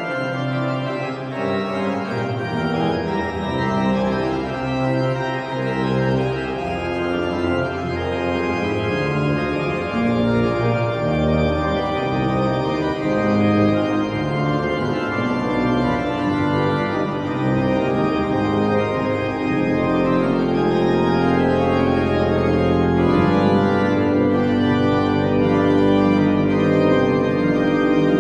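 Organ music: sustained chords with moving lines above them, and a deep held bass coming in about two-thirds of the way through.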